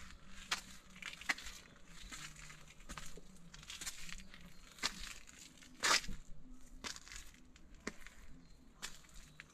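Footsteps crunching on a path covered with dry fallen leaves, at a steady walking pace of about one step a second, with one heavier step about six seconds in.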